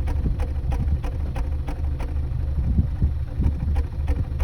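VW Tiguan 1.4 TSI (CAXA) engine idling on a cold start, a steady low drone broken by sharp ticking pops about three times a second. The owner takes these pops for a misfire on cylinder one, with detonation and knocking when cold.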